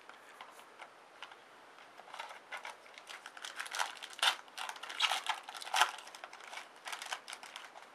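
Trading card packs and cards being handled: a quick, uneven run of crinkling and rustling crackles that starts about two seconds in and dies away just before the end.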